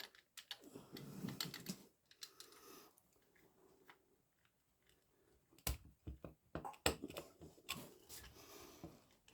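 Scattered light clicks and rattles of hand tools and small metal parts being handled during motorcycle clutch disassembly, with a quiet stretch in the middle and a couple of sharper clicks after it.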